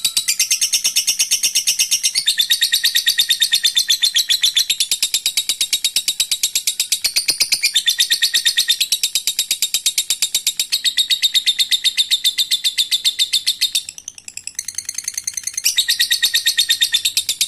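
Lovebird ngekek: a long, rapid chattering trill of sharp, high notes, many to the second. It eases off briefly late on, then picks up again.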